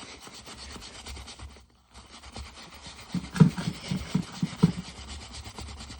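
Glove conditioner wax being rubbed in small circles into the leather of an old baseball glove: a continuous scratchy rubbing that stops briefly near the start, with a few soft knocks in the second half.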